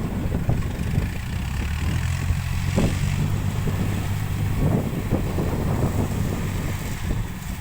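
Kubota DC-70 rice combine harvesters running steadily under load while cutting rice, a continuous low diesel drone.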